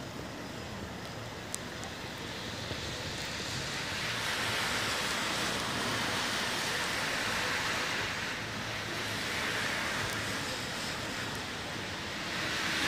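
Traffic on a wet, slushy street: tyre hiss of passing vehicles, swelling up twice, about four seconds in and again near the end.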